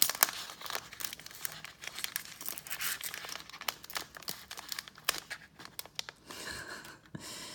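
Trading card pack wrapper being torn and crinkled open by hand, a steady run of sharp crackles and rustles as it resists opening.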